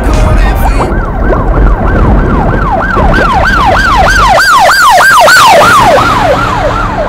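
A siren yelping: a pitch sweeping rapidly up and down, about three times a second, over a deep rumble that drops away about halfway through. The siren fades near the end.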